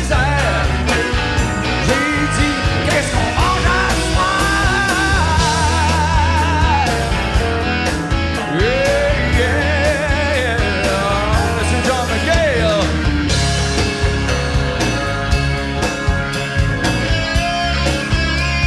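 Live rock band playing loud and steady, with electric guitars, bass and drums. A lead vocal melody wavers with vibrato and bends in pitch over the band.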